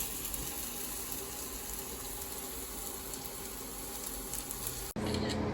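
A steady, even hiss with no clear rhythm or pitch, cutting off abruptly about five seconds in.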